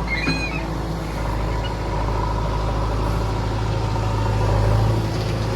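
Heavy diesel engine running steadily at a low, even drone, with a brief high squeak in the first half-second.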